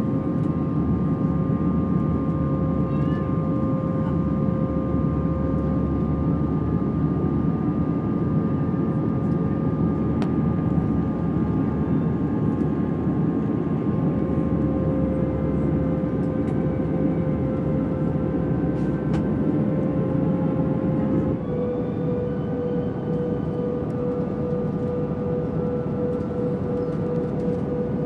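Airbus A320 twin-jet engines heard inside the passenger cabin during the climb: a steady roar with a constant whine. About three-quarters of the way through, the whine steps down slightly in pitch and the sound gets a little quieter.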